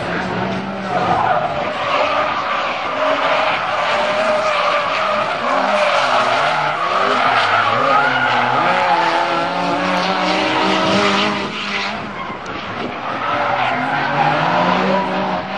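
Two drift cars in a tandem run. Their engines rise and fall in pitch with the throttle while the tyres squeal and skid through the slide. The level dips briefly near the end and then comes back.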